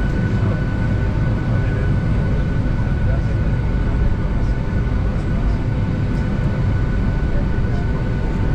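Boeing 757 cabin noise while taxiing: a steady engine whine over a low rumble.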